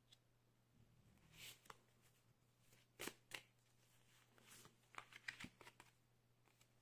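Faint handling of tarot cards on a wooden table: a soft swish about a second and a half in, two light taps around three seconds, then a quick run of small clicks about five seconds in.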